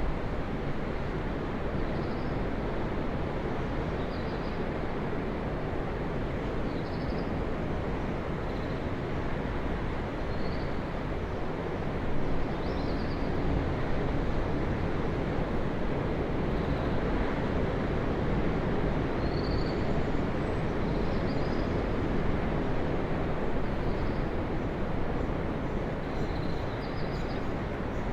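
Ocean surf: a steady, low, rushing rumble of waves breaking and washing ashore, with faint high chirps every couple of seconds above it.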